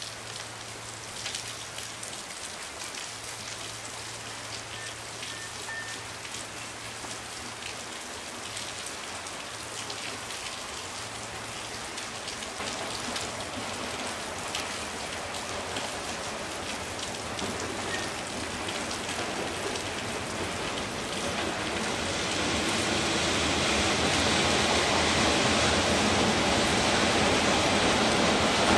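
Steady drizzle falling, with the diesel-electric locomotive of an approaching freight train growing louder under it, swelling about three-quarters of the way through as the locomotive draws alongside.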